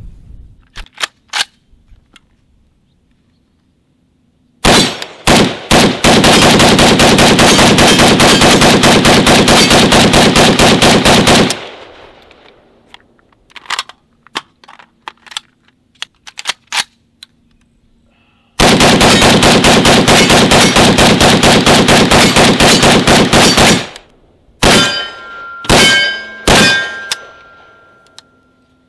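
Krebs Custom AC-15 AK-47 pistol firing on full auto: a few single shots about five seconds in, then two long bursts of about five seconds each, then several short bursts near the end with steel targets ringing after the hits. Light clicks of gun handling and a magazine change come between the bursts.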